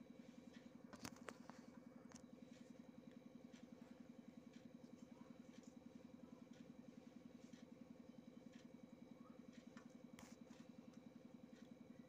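Near silence: a faint steady mechanical hum with a rapid, even pulse, and a few faint clicks.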